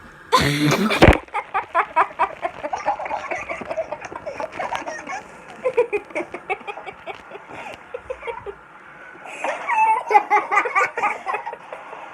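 A sudden loud burst of breath and noise about half a second in, followed by laughter that comes in quick repeated bursts, dies down after a few seconds and breaks out again near the end.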